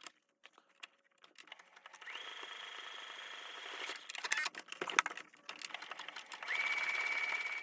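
Electric sewing machine stitching in two runs, its motor whine rising quickly to a steady pitch each time. A few clicks and knocks come between the runs.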